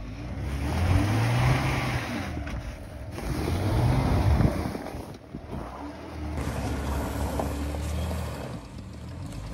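Chrysler minivan's engine revving as it tries to drive out of deep snow, its front tire spinning without grip: the van is stuck. The engine climbs and falls twice in the first half, then runs more steadily.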